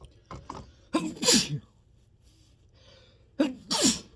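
Two sneezes, about two and a half seconds apart, each a quick two-part burst.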